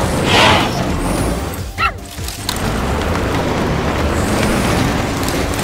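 Cartoon background music over the steady low rumble of a machine engine, with a short high squeal about two seconds in.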